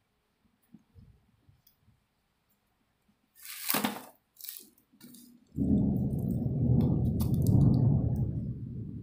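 An SSD's packaging being opened: faint handling clicks, then a short rip and a second smaller one a little before halfway. From just past halfway a loud, steady low rumble takes over.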